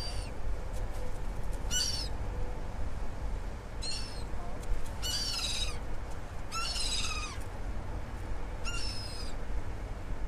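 Gulls calling overhead: six harsh, high calls about every one and a half to two seconds, some broken into several quick falling notes, over a steady low rumble.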